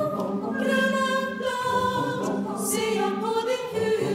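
Choir singing, holding long notes that move to new pitches every second or so.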